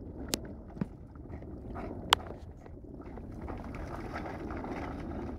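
A bullmastiff splashing and sloshing the water in a pool, with wind rumbling on the microphone. A few sharp clicks cut through, the loudest about two seconds in.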